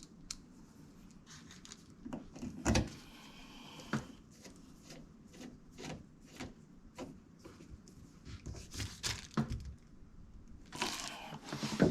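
Irregular clicks and knocks of screws and a hand screwdriver working on a door lock's mounting hardware while the lock's fixing screws go in, with two louder knocks about three and four seconds in.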